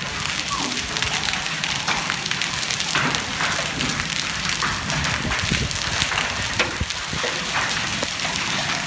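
Heavy rain falling, a steady dense patter of many drops striking.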